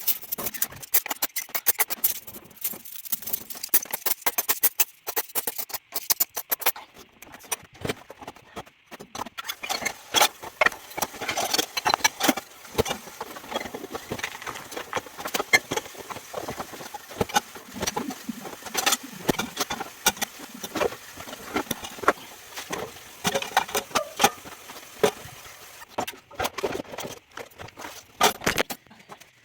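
Dishes and cutlery clinking and clattering irregularly as they are handled, typical of loading a dishwasher.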